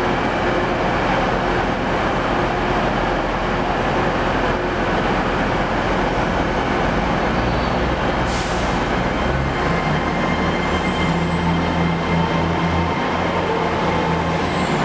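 Passenger train pulling out of a station platform under a trainshed roof: a steady engine drone, a short hiss about eight seconds in, then a low pulsing hum building as the train moves off, with a high wavering wheel squeal near the end.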